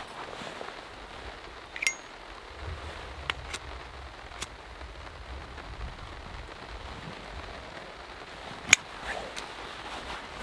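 Five or so sharp metallic clicks from a small brass lighter being handled to light a cotton-ball tinder for a stainless steel twig stove, the loudest near the end, over a steady hiss.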